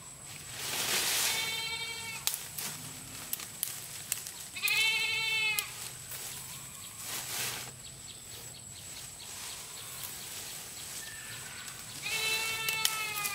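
A goat bleating three times, each bleat a wavering cry of about a second, with the rustle of leafy branches being handled and shaken between the calls.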